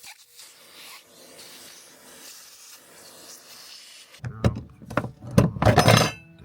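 Lock-ring tool on a breaker bar working a fuel pump's locking ring loose: faint scraping, then from about four seconds in a run of loud metal knocks and clanks as the ring is forced round.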